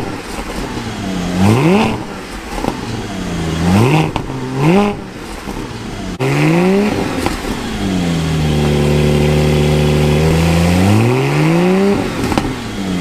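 Porsche 718 Spyder's 4.0-litre flat-six on its stock exhaust, revved in several quick throttle blips. The revs then settle into a steady held note for a couple of seconds before climbing again near the end.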